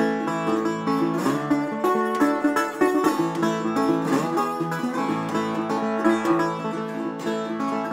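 Metal-bodied resonator guitar picked as a solo instrumental passage, a run of plucked notes over changing bass notes.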